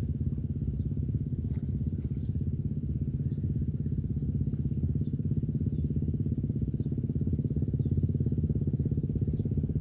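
Small engine running steadily at a constant speed, a low, rapid, even putter with no change in pitch.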